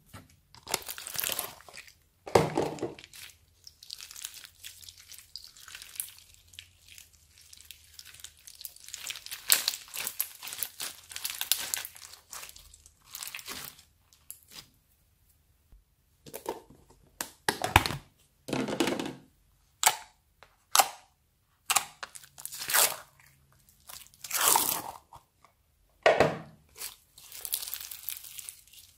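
Slime being squeezed, pressed and pulled apart by hand, a mix of many slimes including foam-bead slime: irregular crackling, crunching and sticky tearing sounds in uneven bursts, with a brief lull about halfway through.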